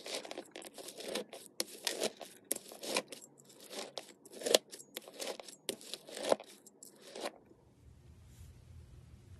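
Slime being squeezed and poked by hand: a dense, irregular run of short clicks and pops that stops about seven seconds in, leaving a faint low hum.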